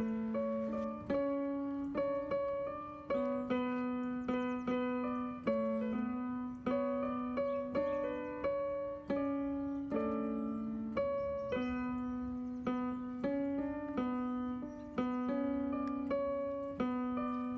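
Electronic keyboard playing a slow melody on a piano voice, a note or chord struck about twice a second and each left to decay.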